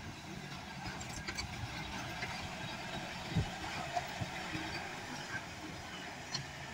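Loaded Nissan dump truck's diesel engine running steadily as the truck drives past, with a few short knocks from the truck about halfway through.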